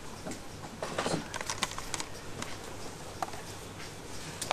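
Faint scattered clicks and rustles over a steady background hiss, with a small cluster of clicks about a second in: handling noise from a handheld camera moved close along a shop shelf.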